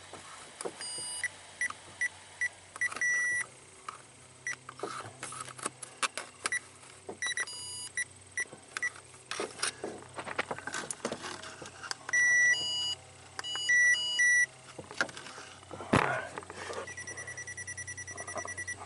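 Handheld receiver of a Power Probe ECT2000 open/short locator beeping as it is swept along a wiring harness: a run of short beeps, a later cluster of longer beeps, and a fast even pulsing near the end. The beeps show it is picking up the tracer signal, so the wire is unbroken at that spot. Light clicks of hand and receiver against the harness.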